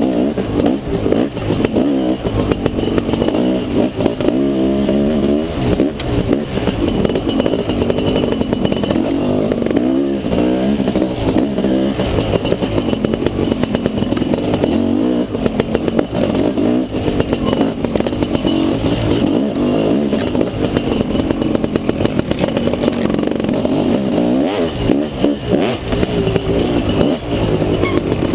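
Dirt bike engine revving up and down continually as it is ridden hard on a trail.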